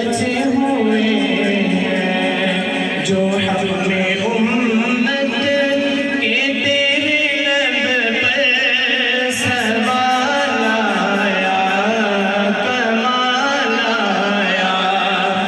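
Naat, an Urdu devotional song, sung unaccompanied by a male voice in long ornamented lines that waver in pitch, over a steady low drone.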